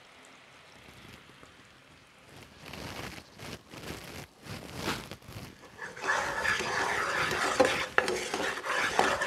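Wooden spoon stirring and scraping bubbling jaggery syrup in a non-stick pan, the syrup sizzling as it boils toward the ball stage. The stirring starts about two seconds in, comes and goes, and is steady and louder from about six seconds in, with the odd sharp click of the spoon against the pan.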